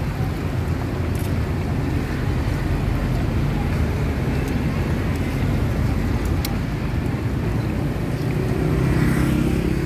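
Steady rumble of motor traffic, with one vehicle's engine growing louder near the end.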